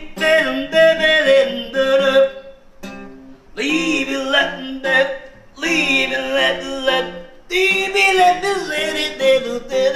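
A man singing loudly while strumming an acoustic guitar, the voice coming in four phrases with short breaks between them.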